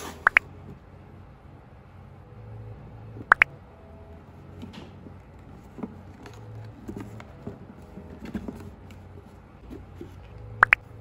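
Hands handling a rigid cardboard gift box: light knocks, scrapes and rustles of fingers on the card, with three sharp clicks, one near the start, one about three seconds in and one near the end.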